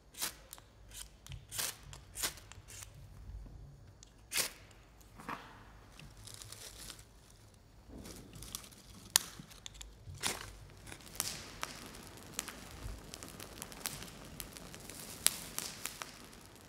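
Crisp crunching and tearing of food being prepared by hand, with scattered sharp clicks and knocks. It becomes denser and more continuous about halfway through.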